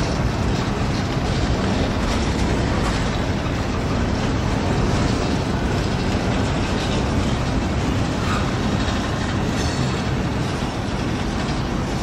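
Freight train's boxcars rolling past close by: steady noise of steel wheels running on the rails, with no engine or horn standing out.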